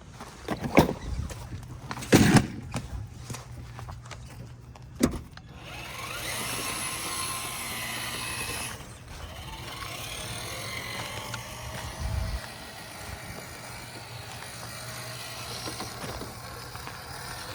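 A few sharp knocks, then from about six seconds in the Traxxas TRX-6 6x6 RC crawler's electric motor and gear drive run with a whine that rises and falls in pitch with the throttle.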